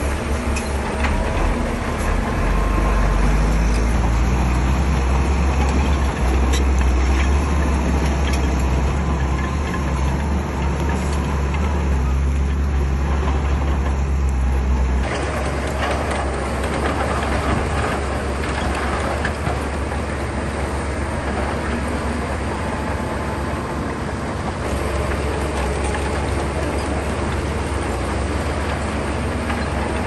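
Heavy earthmoving machinery at work: large diesel engines running with a deep, steady rumble under a noisy mechanical clatter. The sound changes abruptly about halfway through.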